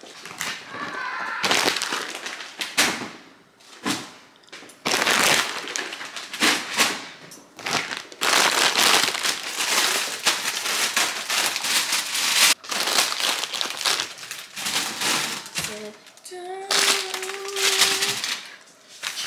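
Plastic grocery bags and food packaging rustling and crinkling, with knocks of items being handled and set down, as groceries are unpacked and put away in a refrigerator.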